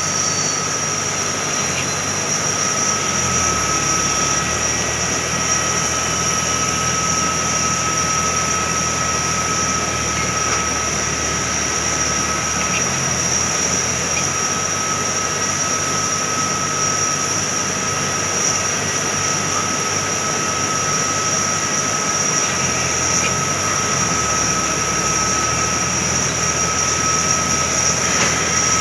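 Steady high-pitched whine of jet aircraft turbines on an airport apron: two fixed tones over an even rushing noise, with a low rumble underneath that shifts in pitch a few times.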